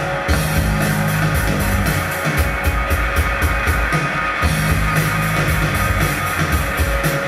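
A rock band playing live in an instrumental passage: a drum kit keeps a steady beat under guitar, with low sustained notes that come and go.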